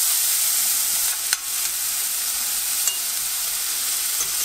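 Chopped red onion sizzling steadily in hot coconut oil in a stainless steel saucepan, a loud even frying hiss, with a few light clicks of a spoon against the pan as the onion is stirred.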